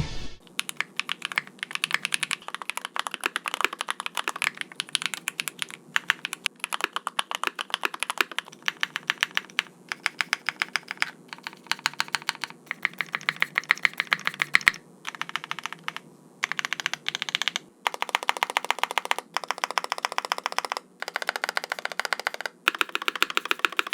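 Rapid typing on a mechanical keyboard in a run of short comparison takes, each cut off by a brief gap, with Gateron Cream Soda long-pole linear switches among the switches tested.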